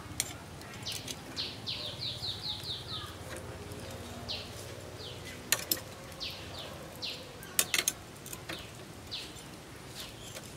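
Metal tongs clicking sharply against the wire grill as the roasting mice are turned: once near the start, a pair about halfway, and a quick cluster a little later. Behind them a bird chirps a fast run of about six short descending notes early on, then single notes now and then.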